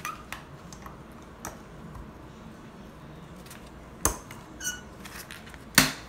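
Pliers working a metal retaining ring out of a resin pump's upper seal housing: faint scraping handling, then a few sharp clicks, the loudest near the end, as the ring comes free and is set down.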